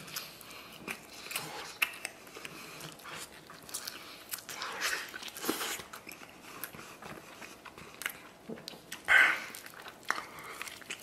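Close-up eating sounds of a man biting and gnawing tender braised beef off a large beef bone and chewing it, in irregular clicks and wet smears. There is one louder burst about nine seconds in.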